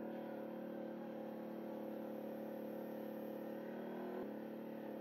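ATV engine running at a steady low speed, its tone holding even, with a single faint click about four seconds in.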